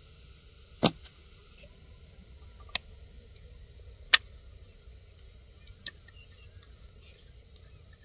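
Four sharp clicks from the black tube sections of a sectional kayak paddle being handled and fitted apart and together, the third the loudest, over a faint steady hiss.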